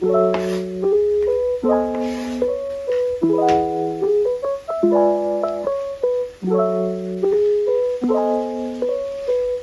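Mellow instrumental background music, with a chord struck about every one and a half seconds and a few quick notes after each.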